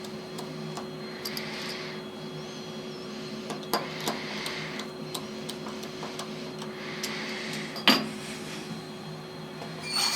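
CNC milling machine running between cuts, a steady hum with soft hissing puffs every few seconds and a few sharp clicks, one loud click near the end. Right at the end the spindle begins to spin up with a rising whine.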